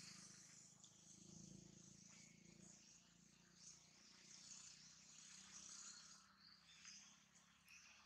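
Near silence: a faint outdoor background of insects chirping steadily, with a faint low hum underneath.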